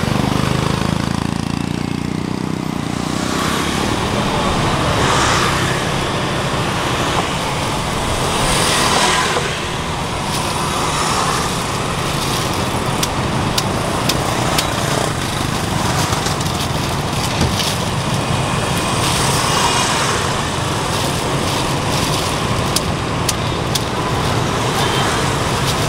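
Steady street traffic of motorbikes passing on a city road, swelling twice as riders go by, with scattered light clicks in the second half.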